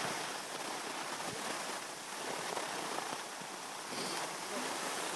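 Steady hiss of skis sliding over snow on a ski run.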